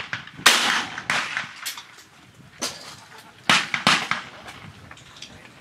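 Shotgun shots on a trap-shooting range. One shot comes about half a second in, then two in quick succession a little past three seconds in, each with a short echoing tail.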